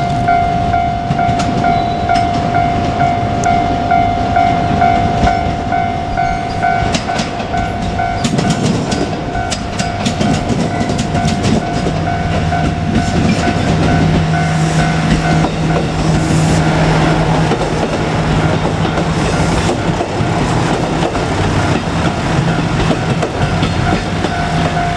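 Japanese level-crossing alarm ringing in a rapid repeating ding, about two strikes a second. Partway through, a diesel railcar runs over the crossing: sharp clicks of wheels over rail joints, then a steady low engine drone and rumble that drown the bell for several seconds before it is heard again near the end.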